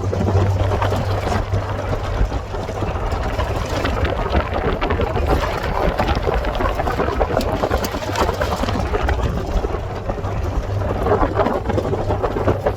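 A vehicle engine running steadily, with a rough rushing noise over it.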